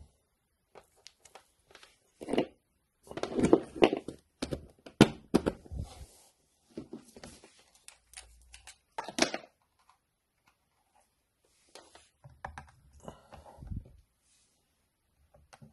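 Handling noises on a workbench: irregular clicks, knocks and rustles as a mains plug and power cord are plugged in and a digital multimeter is picked up and set down.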